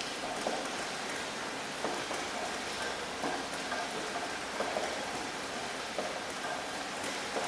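Steady rain falling, a constant hiss with many individual drops heard hitting a surface.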